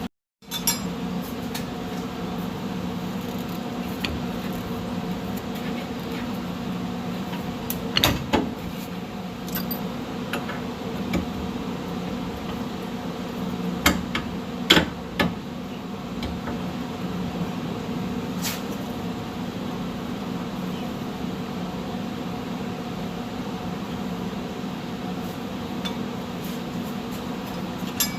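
Steady machine hum with a few fixed tones, like a fan or motor running, broken by a few sharp metallic clanks from work on the truck's rear axle, two of them close together about a quarter of the way through.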